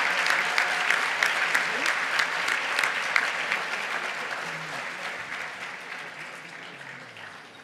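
Audience applauding, many people clapping at once, the applause dying away gradually over the last few seconds.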